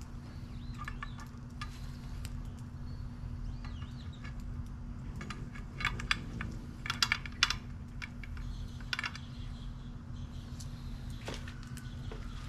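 Metal rotisserie spit and clamp fork clinking and rattling as they are fitted through a whole pig, with a run of sharp clinks in the middle. A steady low hum runs underneath.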